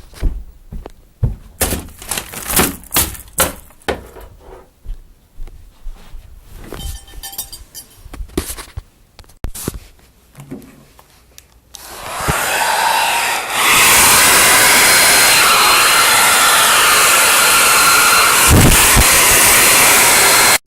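Scattered clicks and knocks for the first twelve seconds or so. Then a loud, steady rushing noise from a running motor starts up, holds, and cuts off abruptly at the end.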